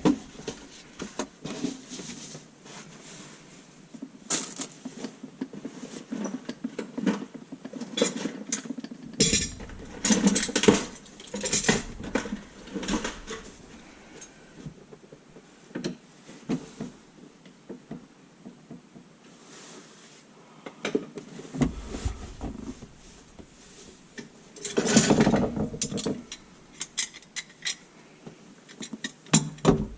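Clanks, clinks and knocks of tools against the metal and plastic drain parts of a kitchen sink as an old garbage disposal and its trap are taken apart, with heavier clattering about ten seconds in and again around twenty-five seconds.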